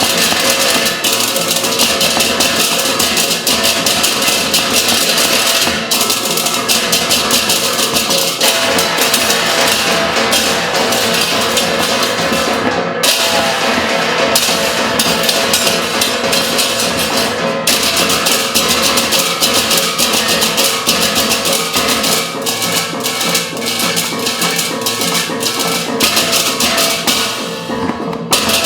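Loud percussion-ensemble music: fast, dense drumming and struck percussion over a few sustained pitched tones, with the bright high shimmer dropping out briefly twice in the middle.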